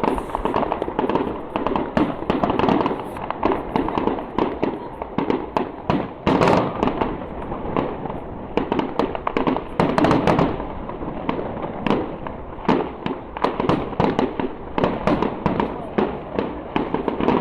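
Fireworks display: shells bursting in quick, irregular succession, many sharp cracks and bangs over a continuous rumble.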